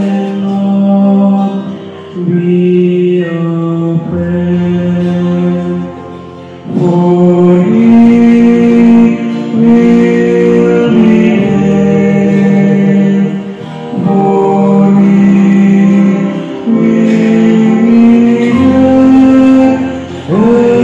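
Male choir singing a slow English hymn in long held chords, phrase by phrase, with short breaks between the phrases.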